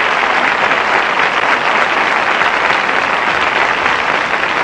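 A large audience applauding, a dense steady clatter of many hands that eases off a little near the end.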